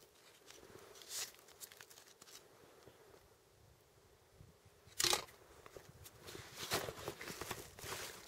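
Packed snow crunching and a plastic bag crinkling as a hand digs into the snow: a few short scrapes, the loudest about five seconds in, then several more near the end.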